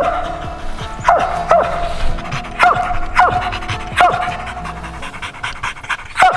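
A squirrel dog barking up a tree: short chop barks, mostly in quick pairs about half a second apart, with a pause about four seconds in and another bark near the end. This is the tree bark that signals game treed.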